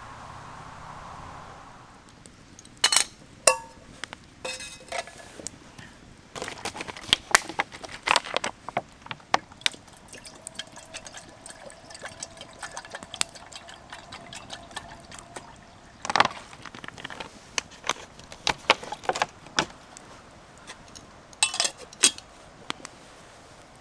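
Liquid being poured, among scattered small clinks and knocks of utensils.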